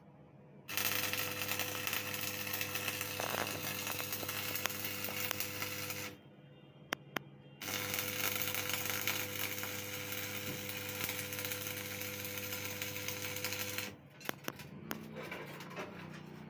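Electric arc welding on sheet steel: the arc crackles and spits over a steady mains hum from the welder. It runs in two beads, breaking off for about a second and a half around six seconds in, then stopping near fourteen seconds. After that come only a few light clicks and taps.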